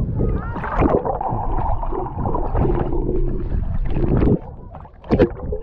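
Lake water sloshing and gurgling against a GoPro Hero 8 held at the surface, a dense, muffled churning with a low rumble. About four seconds in it drops quieter, then a short burst of bubbling as the camera goes under.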